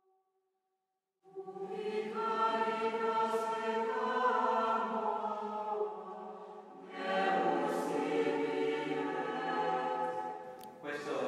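Youth choir singing together in two long held phrases, with a short dip between them about six seconds in; the singing starts after about a second of silence and is cut off abruptly near the end.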